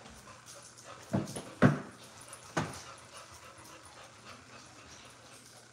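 A dog giving three short vocal sounds between about one and three seconds in, the second the loudest.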